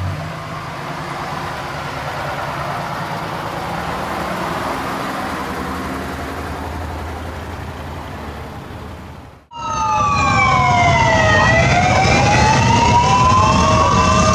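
Parade vehicles, a fire truck and cars, driving slowly past with a steady engine rumble. About nine and a half seconds in the sound breaks off abruptly, and a louder siren starts wailing slowly down and back up in pitch over motorcycle engines.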